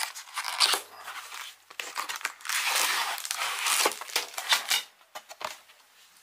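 Cardboard packaging being torn open by hand: crinkling and tearing with scattered crackles, a denser tearing stretch in the middle, dying away near the end.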